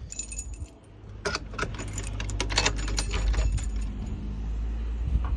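Keys jangling, with a quick run of clicks and jingles in the first half, over a steady low rumble.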